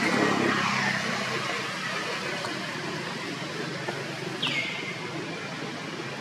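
Outdoor background hiss with a low engine hum that fades away over the first second, and a single short, falling bird chirp about four and a half seconds in.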